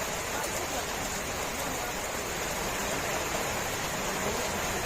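Steady rain falling, an even, unbroken hiss of dense drops.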